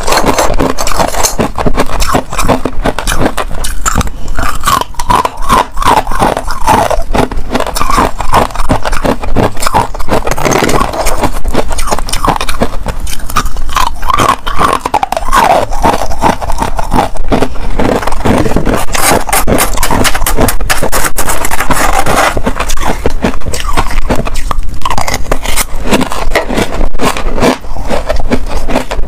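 Hard ice and pink frost ice being bitten and chewed close to a clip-on microphone: a dense, irregular run of loud crunches and crackles.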